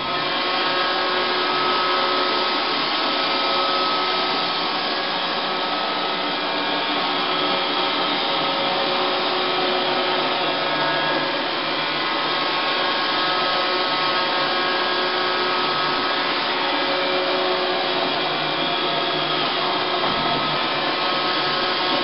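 Roomba 510 robot vacuum running on carpet: a steady machine whir with several steady tones over a hiss.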